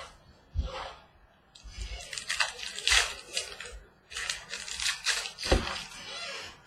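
Rustling, crinkling and tearing of trading-card packaging handled by hand as a new box and pack are opened, in two stretches, with a few dull knocks.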